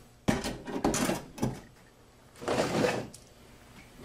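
Metal parts of a Ford 6R80 automatic transmission being handled on a workbench: a sudden clunk, a few quick knocks, then a longer scraping sound about two and a half seconds in.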